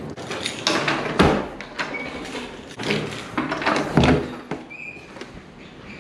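A door being unlocked and opened: a series of sharp knocks and thuds, the loudest about four seconds in, with rustling handling noise and a brief high squeak near the end.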